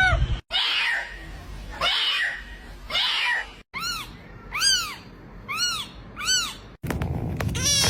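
Cat meowing: a series of about seven short meows, each rising then falling in pitch, roughly one a second, broken by two abrupt cut-outs.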